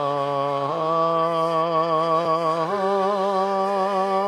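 A single voice sings the alto line of a choral arrangement on a long sustained "ah". It holds one note, then steps up in pitch twice, with a light vibrato.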